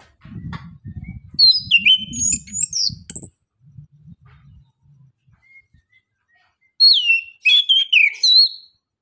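Chestnut-capped thrush (anis kembang) singing: two short, loud phrases of quick whistled notes sliding up and down, the first about a second and a half in and the second near the end.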